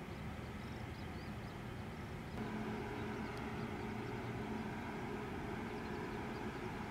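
Steady outdoor background noise with a low mechanical drone. Faint short high chirps repeat in the first two seconds; about two seconds in, the drone grows a little louder and steadier.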